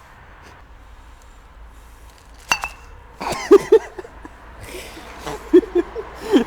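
A single glassy clink with a brief ring, followed by a run of short, pitched vocal sounds in quick pairs.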